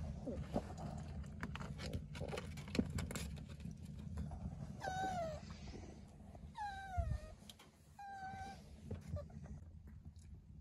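Puppy whining three times, short cries that fall in pitch about a second and a half apart, after a few seconds of rustling and handling clicks.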